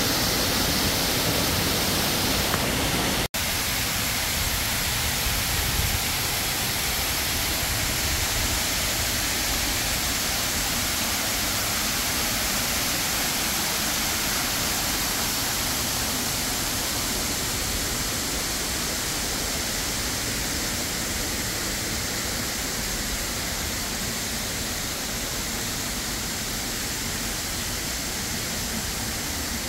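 Steady rushing noise with no distinct tones, with a momentary dropout a little over three seconds in.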